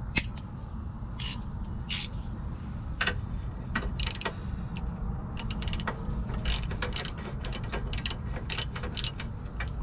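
Socket ratchet clicking in short irregular runs as it is worked back and forth to thread in the lower mounting bolt of a rear shock absorber.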